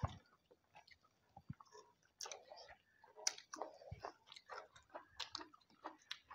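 Close-up eating sounds: soft wet chewing and lip smacks in a steady run of short clicks, with a few dull knocks.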